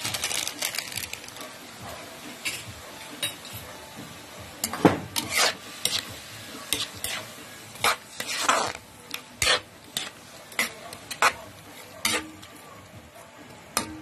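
Spatula scraping and knocking against a pan as vegetables are stir-fried in sauce, with irregular sharp clacks over a steady sizzle.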